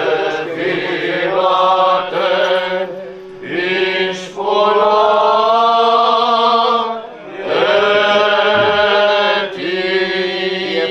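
Male voice singing Greek Orthodox Byzantine chant in long held, melismatic notes with brief breaths between phrases, over a steady low drone.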